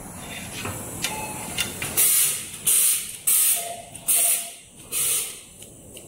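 Fiber laser welding machine firing a run of welds on cable connectors: five short hissing bursts, roughly one every 0.7 s from about two seconds in, each starting sharply and fading, over a softer steady hiss.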